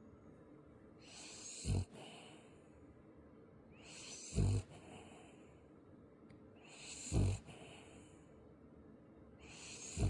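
A sleeping pet snoring: four breaths about three seconds apart, each a building breathy hiss that ends in a short low snort.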